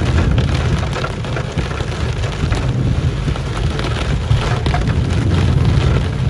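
Heavy rain pelting the car's roof and windscreen as a dense patter of drops, over the steady low rumble of the car driving through the downpour.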